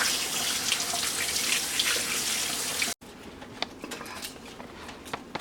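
Kitchen tap running as red peppers are washed under it. The water sound cuts off suddenly about three seconds in, leaving a few light clicks and knocks.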